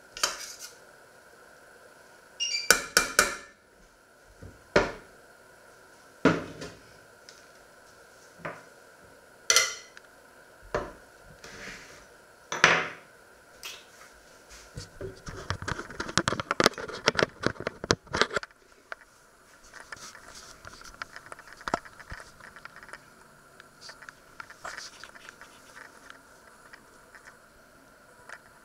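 Metal spoon knocking and scraping against a stainless steel pot as food is spooned out: a series of sharp metallic clinks, several ringing briefly. A little past the middle comes about three seconds of rapid clattering of kitchenware, then only light scattered knocks.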